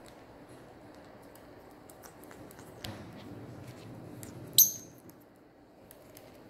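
A small pet parrot gives one short, sharp, high-pitched chirp about four and a half seconds in, the loudest sound. Before it come scattered faint clicks and light handling noise.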